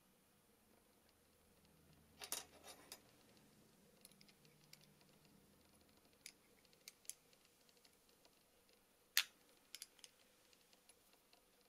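Sparse small metallic clicks and taps from a hex key and the steel plates of a lathe compound slide being handled and its cap screws worked: a quick cluster about two seconds in, single clicks after that, and the sharpest click about nine seconds in.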